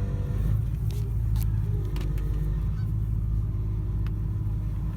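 Truck engine running steadily, with a few short honks from geese near the start and about two seconds in.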